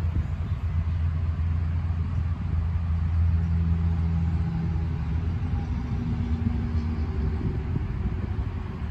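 Steady low rumble, with the faint whine of an Axial SCX24 micro crawler's small electric motor and gears as it crawls slowly up a tree root, the whine clearest in the middle of the stretch.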